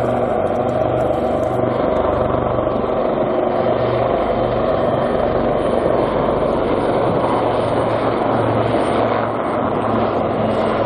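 Two Royal Navy Lynx-family helicopters flying overhead in close formation: a steady rotor and engine noise with a thin high turbine whine on top.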